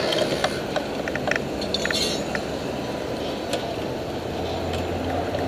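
A group of bicycles rolling slowly past, their metal parts giving scattered light clicks and clinks over steady traffic noise. A low engine hum comes in near the end.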